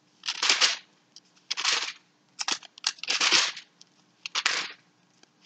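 Pages of a Bible being turned by hand: a series of short paper rustles, about one a second.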